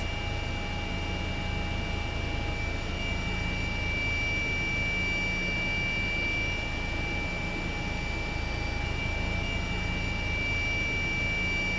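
Steady helicopter noise heard from inside the cabin: engine and rotor hum with a constant high whine over it.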